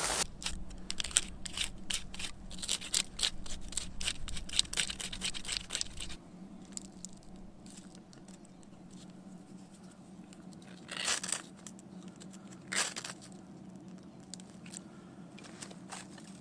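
Ferro rod being scraped over a strip of birch bark: a fast run of rasping scrapes for about six seconds, then two quick strikes about two seconds apart that throw sparks and light the bark.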